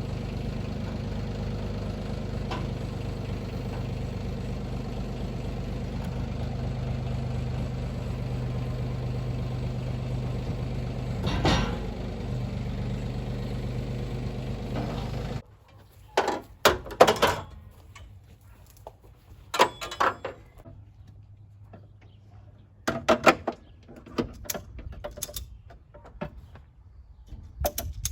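A steady mechanical hum like a running engine or motor, which stops abruptly about halfway through. Then come scattered sharp clanks and short rattles, like metal tool work.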